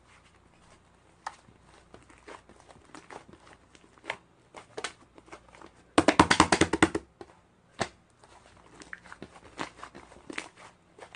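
Crinkling and rustling of a light, crinkly material in irregular small clicks, with a sudden rapid run of loud scratching strokes lasting about a second, about six seconds in.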